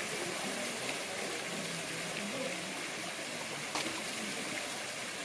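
Small garden waterfall spilling into a pond: a steady rush of falling water, with faint distant voices under it and one short click about four seconds in.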